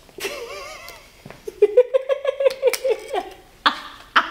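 A woman laughing hard: a wavering high note, then a quick run of about a dozen short 'ha' bursts, then a couple of breathy gasps near the end.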